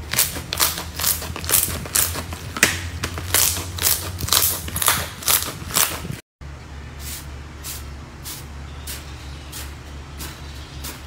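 Slime being squeezed and poked by hand, giving a run of sharp squishy pops about two to three a second. A cut about six seconds in brings a second clip with softer pops over a low steady hum.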